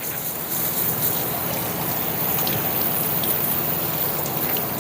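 Water spraying steadily from a hose nozzle, washing down furnace doors.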